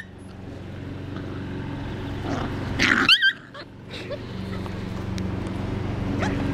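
A wire-haired dachshund puppy gives one short, high yelp about three seconds in, during rough play and discipline from its mother. Under it runs a low steady hum that grows louder toward the end.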